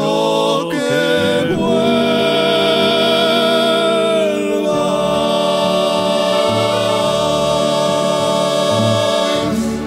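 Closing bars of a habanera sung by a men's vocal group with accordion: the voices settle onto a long held final chord in harmony, with vibrato, which fades out near the end.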